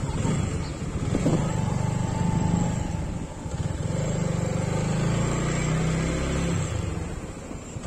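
Motorcycle engine running at low road speed under the rider, a steady hum that eases off about two-thirds of the way through as the throttle is closed.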